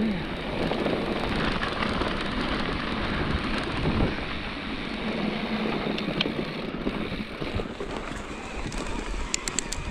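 Electric mountain bike riding on a dirt trail: its tyres rolling over the dirt under steady wind noise on the microphone, with a few sharp clicks and rattles near the end.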